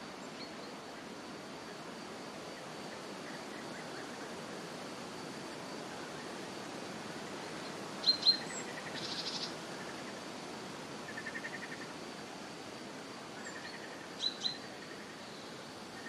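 Birds calling over a steady hiss of a small forest brook: a sharp double chirp about halfway through, a couple of short trills after it, and another double chirp near the end.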